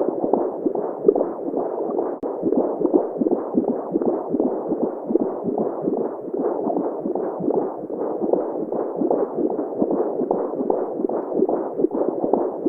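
Recorded or simulated womb sound: a steady, muffled noise that pulses in quick, even beats like a heartbeat.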